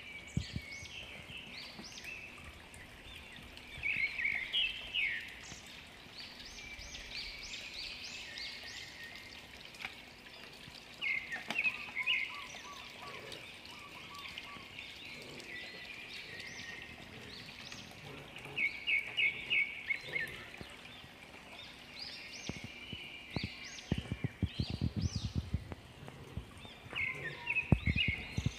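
Birds chirping in repeated bursts of short, high notes over the steady trickle of a small garden water fountain, with a few dull low thumps near the end.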